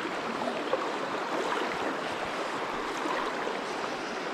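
Steady rushing of river water flowing over stones.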